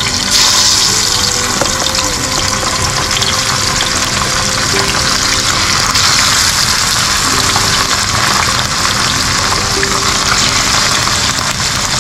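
Spice-coated fish pieces frying in a shallow pan of hot oil: a loud, steady sizzling hiss that starts suddenly just after the beginning.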